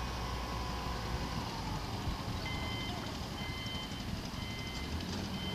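Heavy construction machine engine running with a steady low rumble; about halfway through a reversing alarm starts beeping, roughly once a second, as a machine backs up.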